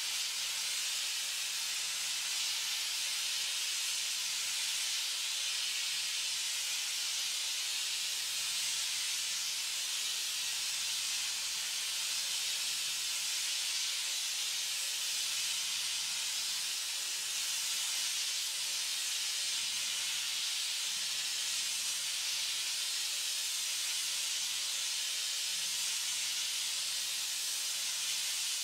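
Gas blowtorch burning with a steady hiss, its flame held on a sand-filled steel exhaust pipe to heat it for bending.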